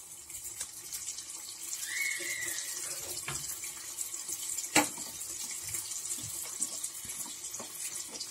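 Rolled maida-dough snack deep-frying in hot oil: a steady sizzle full of fine crackles, with one sharp pop a little before five seconds in.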